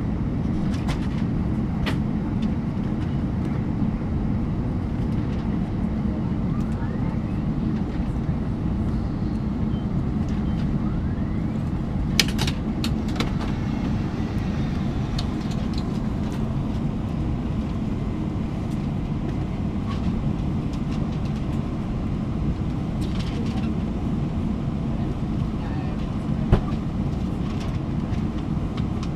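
Steady low rumble of an Airbus A321-200 airliner cabin, with one sharp click about twelve seconds in and another near the end.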